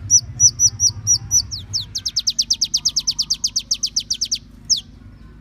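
Small songbird singing high: six hooked notes, then a fast trill of about eight downslurred notes a second, ending in two separate downslurred notes.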